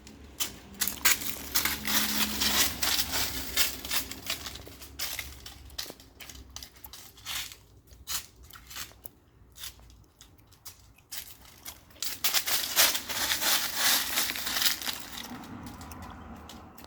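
Irregular crunching and crackling, thickest in two spells: one in the first few seconds and one about twelve seconds in, with scattered clicks between.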